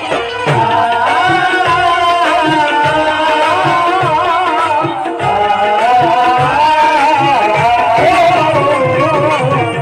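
Qawwali: male voices singing a wavering melody over a harmonium's held notes and steady hand-drum strokes on dholak and tabla.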